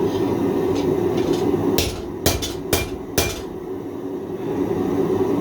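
Hammer blows on hot 1095 carbon steel: about five sharp ringing strikes, a little under two seconds in to about three and a quarter seconds, over a steady low rushing noise.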